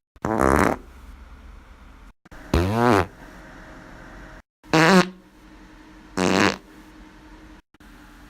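Four farts in a row, each short and loud and under a second long, with a buzzing pitch that bends as it goes, spliced one after another.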